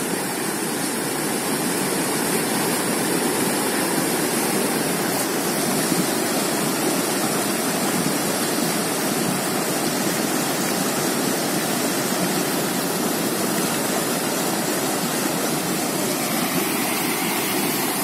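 Fast mountain river rushing over boulders in white-water rapids, a steady, unbroken rush of water.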